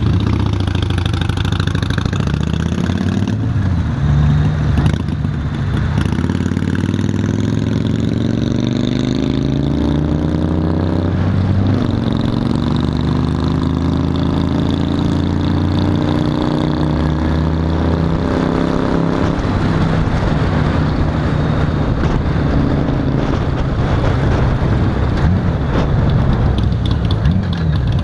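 Honda Valkyrie F6C's flat-six engine heard from the moving motorcycle, pulling up through the gears: it rises in pitch, drops at a gear change about eleven seconds in, rises again, then holds steady at cruise.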